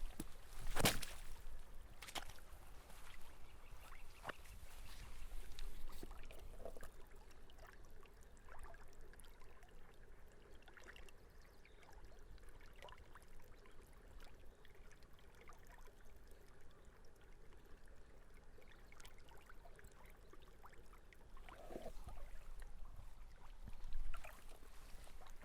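Small snowmelt stream trickling and gurgling, with scattered sharp clicks of water; the sharpest comes about a second in.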